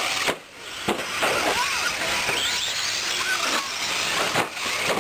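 Electric 1/10-scale 4WD short course RC trucks racing past, their motors whining up and down in pitch with the throttle over tyre noise on dirt. A few sharp knocks and a brief drop in level about half a second in.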